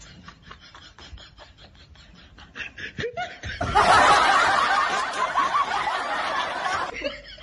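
Quiet snickering, then loud, sustained laughter breaking out about three and a half seconds in.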